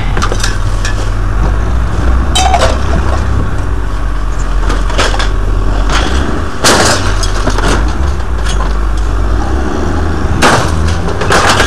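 Scrap metal and junk electronics being thrown onto a scrap pile: about six separate crashes and clanks, the loudest a little past the middle, over a steady low rumble.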